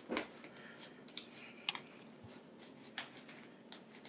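Gloved hands pressing and patting raw ground meat into a loaf on a sheet pan: faint, irregular soft clicks and squishes, several a second.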